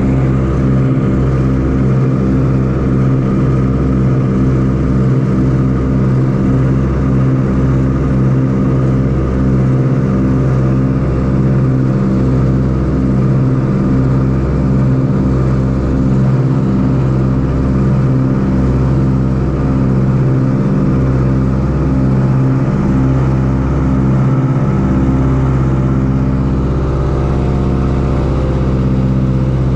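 Ford Tri-Motor's radial engines and propellers droning steadily in cruising flight, heard from inside the cabin, with a slow uneven pulsing beat in the low drone.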